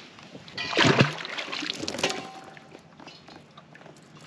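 A freshwater drum dropped back into the lake from a kayak: one sudden splash about a second in, followed by fainter water slosh and small knocks.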